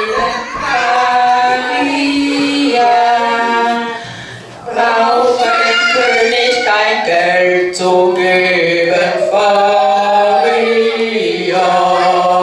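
Several voices singing a song together in chorus, holding long notes, with a brief break about four seconds in.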